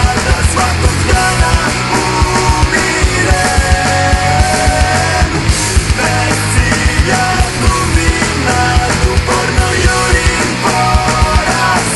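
Loud punk rock music played by a full band, with a fast, driving drum beat and no pause.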